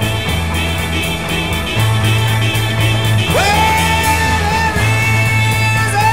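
Rock band playing a slow minor-key song: electric guitar and a bass line that steps from note to note under regular cymbal ticks. About halfway in, a male lead vocalist comes in with a loud held note that slides up into its pitch.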